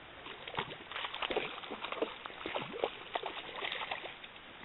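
Spinning reel being cranked to bring in a hooked fish, with irregular clicks and light water splashing at the shore's edge.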